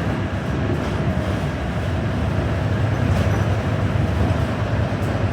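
Inside a New Flyer XD40 diesel city bus: a steady low engine rumble and road noise, with a couple of faint clicks.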